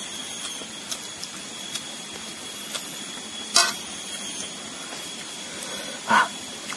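Steady hiss with a constant high-pitched drone, typical of forest insects, and a few short clicks and smacks of someone chewing and eating by hand.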